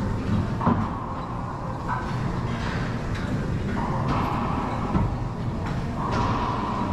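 Racquetball rally: several sharp cracks of the racquet and ball hitting the court walls, each followed by the enclosed court's ringing echo, over a steady low rumble.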